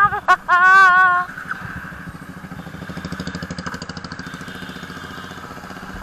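Motorcycle engine running at low speed with an even, rapid pulse. A loud wavering, voice-like tone fills the first second, then the engine is left on its own.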